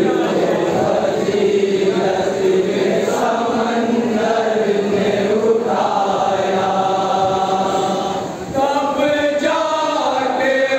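Group of men chanting a noha, an Urdu mourning lament, together into microphones, in long held phrases with a brief dip about eight seconds in.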